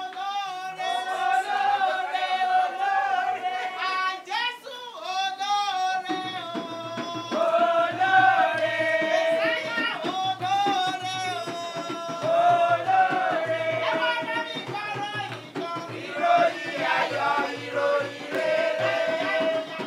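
A woman singing into a microphone, her voice clear and melodic; about six seconds in a steady drum beat joins underneath the singing.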